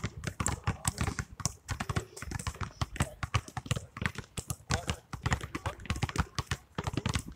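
Several basketballs being dribbled at once on an asphalt court: a dense, irregular patter of overlapping bounces, several a second.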